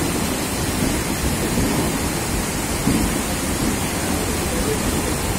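Steady rushing, splashing water and a low rumble as a goods train's wagon wheels churn slowly through floodwater about a foot deep over the track.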